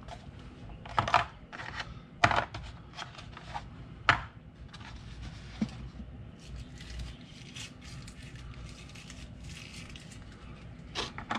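Hands handling a plastic packaging tray and small camera accessories: several sharp plastic clicks and knocks in the first four seconds, then lighter ticks and rustling.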